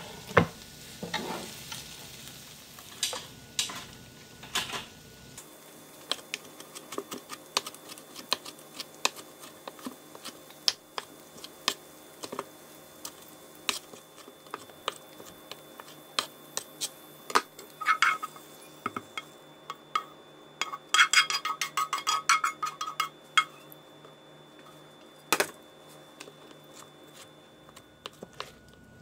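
A wooden cutting board set down with a loud knock, then a large kitchen knife chopping fresh pineapple on the board: scattered single strokes, and a quick run of rapid chops about two-thirds of the way through.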